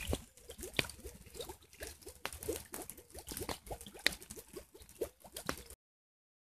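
Water from an underground spring welling up into a flooded pool, bubbling with quick, irregular small plops and gurgles. The sound cuts off suddenly about a second before the end.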